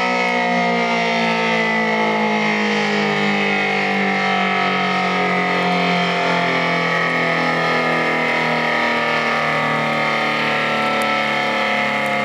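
Federal Signal SD-10 electromechanical outdoor warning siren sounding a steady, loud tone whose pitch slowly falls as the rotor winds down at the end of the test.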